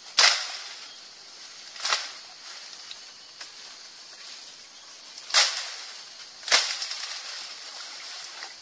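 Four sharp swishing snaps of tall grass and leafy stems being pulled and torn by hand, spread out over several seconds, over a steady faint hiss.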